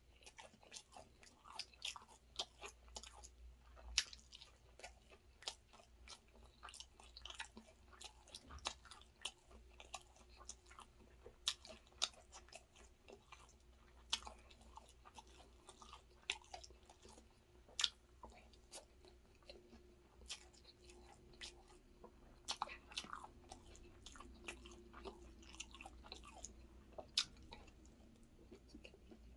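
Chewing and mouth sounds of someone eating chicken biryani by hand: an irregular stream of sharp little clicks and smacks.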